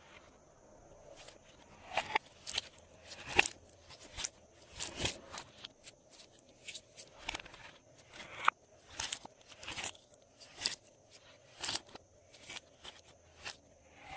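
Glossy slime being worked by hand, giving a string of sharp sticky clicks and pops at an irregular pace of about one or two a second.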